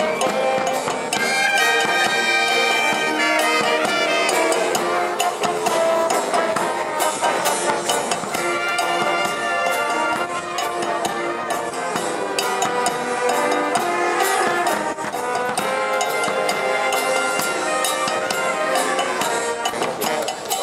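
Marching brass band playing a tune: trumpets, trombones and saxophones over drums.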